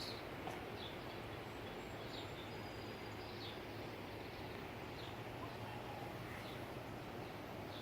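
Steady rush of strong wind, with a bird's short, high chirps every second or so.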